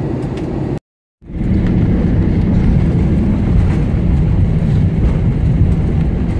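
Airliner cabin noise heard from inside the cabin: a steady low rumble of engines and airflow. It cuts out for a moment about a second in, then returns as a louder low rumble while the plane rolls along the runway after touchdown.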